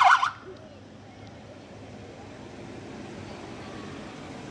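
A short siren yelp from the emergency vehicle leading the parade, rapidly warbling up and down, cuts off a moment in. It leaves low street noise with a vehicle rolling slowly past.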